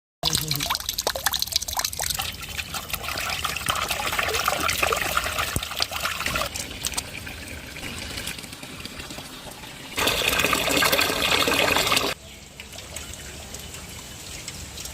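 Water pouring and trickling, with a louder pour of about two seconds near the end that cuts off suddenly.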